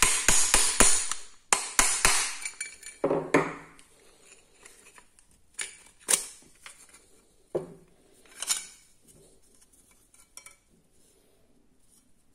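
Hard objects clattering and clinking, like dishes and cutlery being handled: a dense run of clatters over the first few seconds, then a few scattered single knocks.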